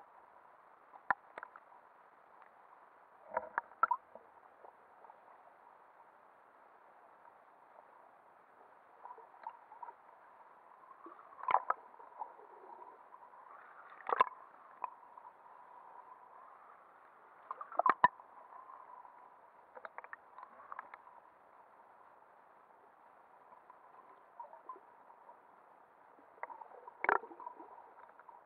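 Muffled underwater sound picked up by an action camera inside its waterproof housing: a faint, dull hiss with a sharp click or knock every few seconds. The loudest knocks come about 12, 14 and 18 seconds in.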